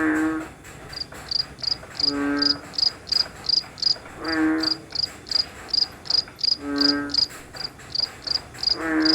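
A cricket chirping in a steady high-pitched rhythm, about three chirps a second. Under it, a frog repeats a short pitched croak about every two seconds, five times.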